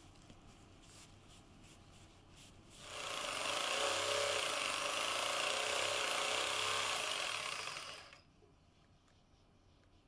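Electric jigsaw cutting a thin board, running steadily for about five seconds before stopping, with a few light taps and clicks before it starts.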